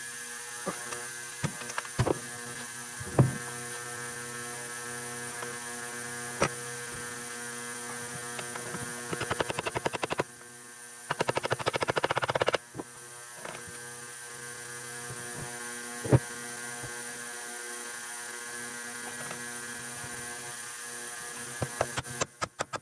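Steady electrical hum with many overtones, broken by scattered sharp knocks and two stretches of rapid, even clicking about nine and eleven seconds in; the hum cuts off suddenly near the end.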